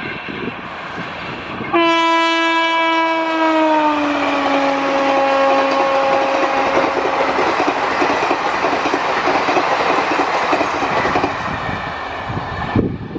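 Horn of a WAP-4 electric locomotive hauling an express train past at speed: a long blast that starts suddenly about two seconds in and drops in pitch as the locomotive goes by, then fades. Under it, the coaches rush and clatter over the rails until the sound cuts off near the end.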